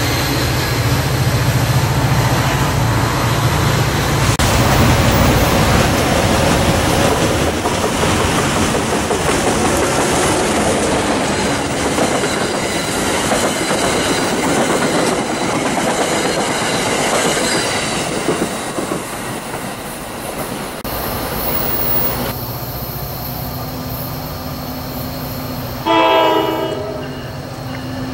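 Commuter train passing close by: the steady rumble and rattle of passenger coaches rolling over the rails, dying down after about twenty seconds. Near the end, an approaching NJ Transit PL42AC diesel locomotive sounds one short, multi-note horn blast.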